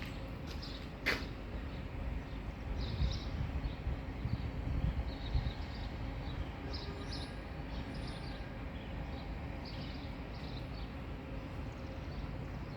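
Outdoor ambience: a steady low rumble with scattered faint bird chirps and a single sharp click about a second in.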